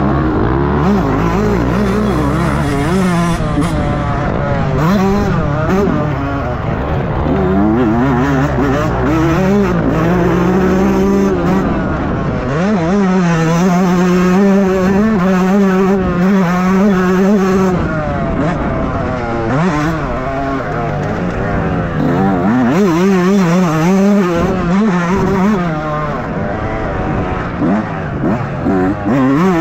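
Motocross bike engine revving hard, its pitch climbing and dropping over and over with throttle and gear changes, then held steady at high revs for several seconds in the middle.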